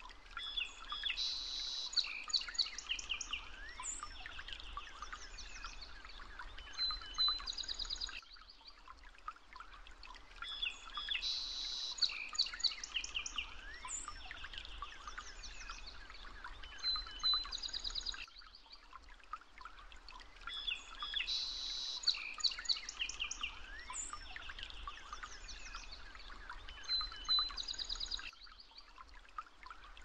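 Birds chirping and trilling over a soft steady hiss. It is a short nature-ambience recording looped about every ten seconds.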